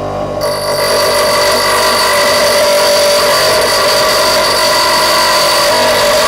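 Parkside bench grinder running, its wheel grinding a large tungsten drill bit. From about half a second in there is a steady grinding noise with high ringing tones over the motor's hum, as the wheel cuts the tungsten.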